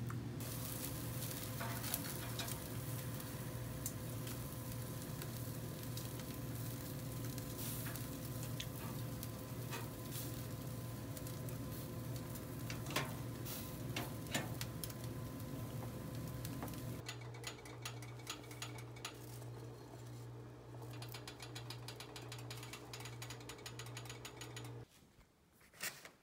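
Food crackling and sizzling on a charcoal grill: a dense run of small pops and crackles over a steady low hum. About 17 s in, the hum turns into a slow pulsing.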